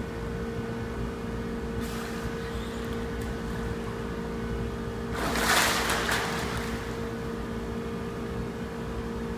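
Steady hum of an indoor swimming pool hall, with a burst of splashing water about five seconds in as a swimmer moves through the pool.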